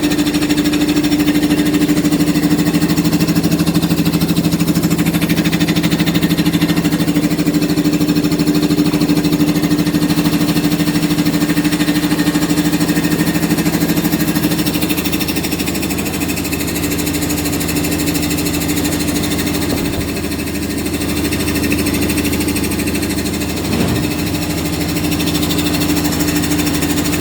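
Air compressor running with a steady mechanical drone and hum. The lower tone changes about halfway through, and there is a brief knock near the end.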